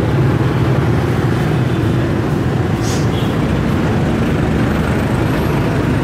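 Steady low rumble of riding a scooter through city traffic: the scooter's engine and road noise, with buses and motorbikes around it. A short hiss comes about three seconds in.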